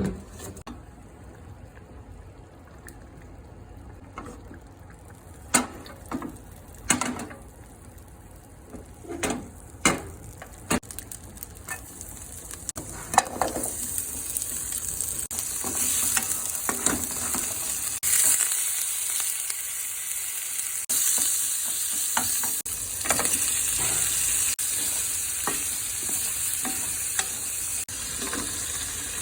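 Vegetables being stir-fried in a frying pan: a utensil knocks and scrapes against the pan in the first half, then a steady sizzle swells up from about halfway and keeps going while the food is stirred.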